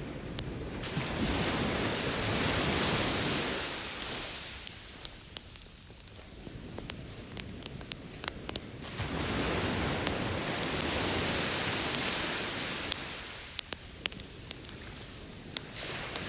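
Ocean waves washing ashore twice, each swelling up and fading away over several seconds. Sharp crackles and pops from a burning campfire sound throughout.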